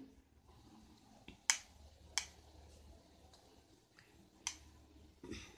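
Several sharp clicks as a hair straightener is handled, its plastic arms knocking and snapping together, the loudest about a second and a half in.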